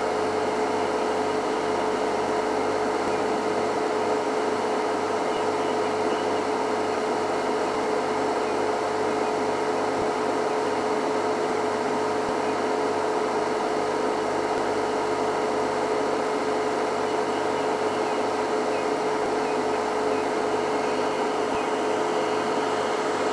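A steady, unchanging hum over a hiss, with one constant tone standing out; no separate events.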